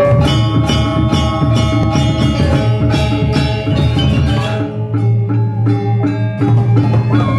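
Balinese gamelan playing: bronze metallophones struck in a fast, even pattern of ringing notes over low percussion. A little past the middle the bright strikes drop away for a couple of seconds, then the fast pattern resumes.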